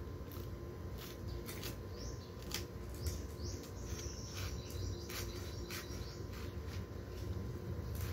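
Green banana hands being twisted and broken off the bunch's stalk by hand, giving short sharp snaps and crackles scattered throughout, over a steady low hum, with a few high chirps near the middle.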